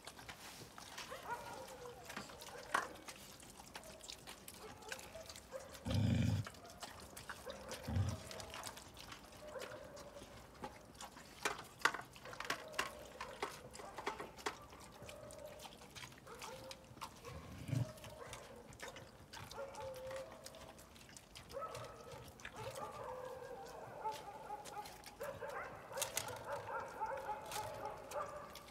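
Dogs eating from dishes on pavement: many sharp clicks of eating, short dog whines and yips that grow busier near the end, and three dull thumps.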